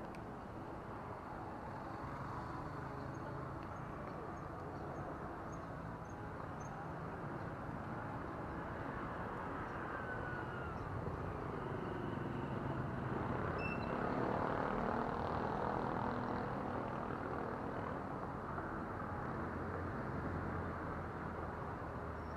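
Steady hum of distant road traffic, swelling for a few seconds past the middle as a vehicle passes, with a few faint high bird chirps a few seconds in.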